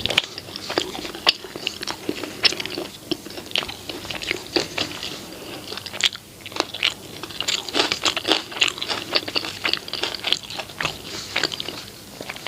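Close-miked chewing and biting of food, with crunchy bites and many irregular sharp mouth clicks running on without pause.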